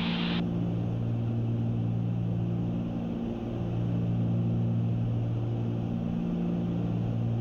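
Cessna 310Q twin-engine plane in flight, its two piston engines and propellers droning steadily in the cabin with a slight slow waver. A hiss cuts off about half a second in.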